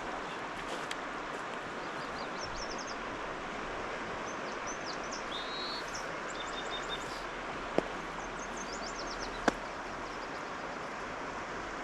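Steady rush of stream water, with small birds chirping in short high runs now and then. Two sharp clicks come in the later part.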